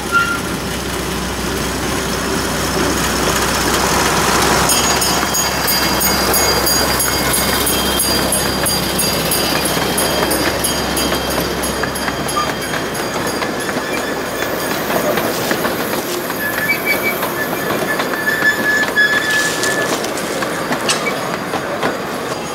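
A 15-inch gauge diesel locomotive runs past with a low engine hum, hauling small freight cars that rumble and click over the rail joints. The engine hum drops away a little past halfway as the cars roll by, and there are short wheel squeals near the end.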